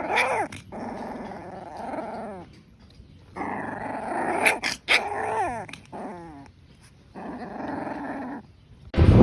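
A dog growling in three bouts separated by short pauses, with high, sliding whine-like yelps in the middle bout.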